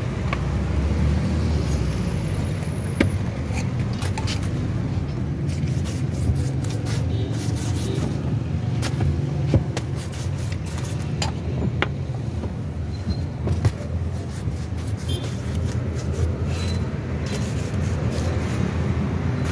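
Steady low rumble of street noise with traffic, with scattered sharp clicks and light scrapes as flatbread is handled on a table.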